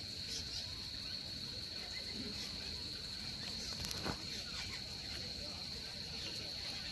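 An insect calling in one steady, unbroken high-pitched buzz, with a brief click and a short falling chirp about four seconds in.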